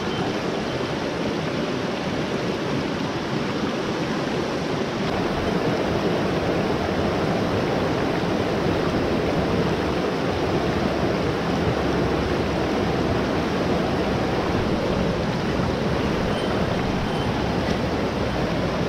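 Mountain stream rushing over rocks and small cascades: a steady rush of water that gets a little louder about five seconds in.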